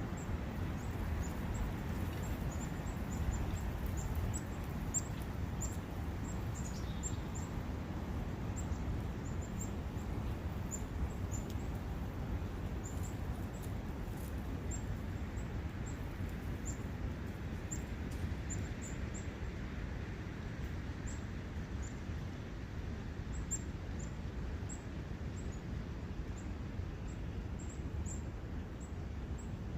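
Steady rushing of a forest brook, with many short, high-pitched bird chirps repeating over it.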